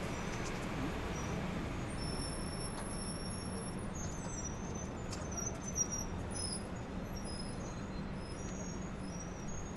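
Steady city street traffic rumble with a low hum, and faint short high-pitched squeals coming and going from about two seconds in.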